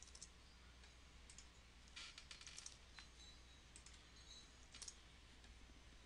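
Faint computer keyboard and mouse clicks as numbers are typed into entry fields, in small clusters, the busiest about two seconds in, over a low steady hum.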